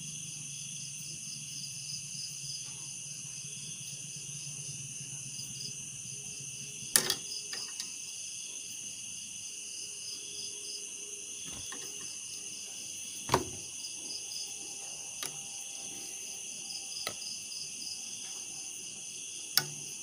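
A steady, high-pitched chorus of insects trilling, one strand pulsing rapidly. A few sharp clicks break through it, three of them louder, spread across the stretch.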